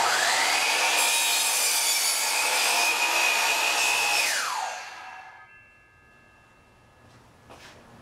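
DeWalt sliding miter saw starting up and cutting through a 2x4, its motor whine steady under the noise of the blade in the wood for about four seconds. The saw is then switched off and the whine falls away as the blade spins down.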